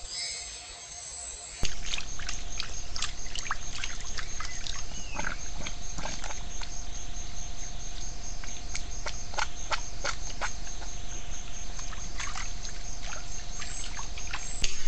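Trail-camera audio of a giant anteater wading in a muddy forest puddle, cutting in abruptly under two seconds in. A steady low rumble and a faint steady high tone run under many short, sharp sounds scattered irregularly through it.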